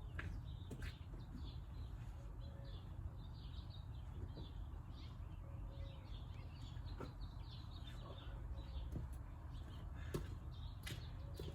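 Small birds chirping and twittering over a low steady rumble, with a few faint clicks.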